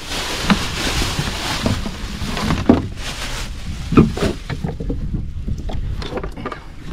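Small motorboat under way: its engine runs steadily beneath wind and rushing water, with three sharp thuds spread through, typical of the hull striking waves.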